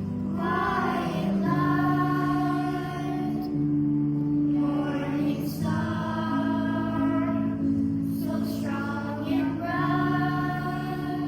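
Children's choir singing a Marian hymn in sustained phrases with short breaks between them, over steady held low notes.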